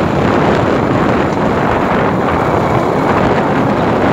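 Steady, loud wind rush buffeting the microphone of a camera moving at road speed, with the running of a moving vehicle underneath.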